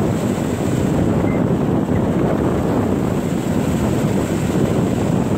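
Strong wind buffeting the microphone ahead of an approaching storm front, over the steady wash of small waves breaking on a lake shore.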